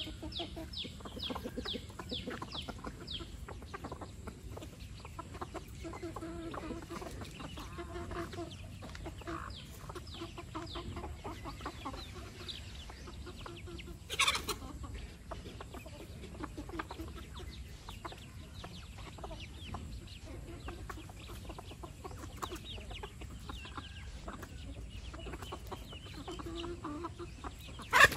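Free-range hens and chicks: hens clucking low and chicks peeping in quick, falling high notes, fastest near the start. A short, sharp, louder sound cuts in about halfway through, and a louder one comes at the very end.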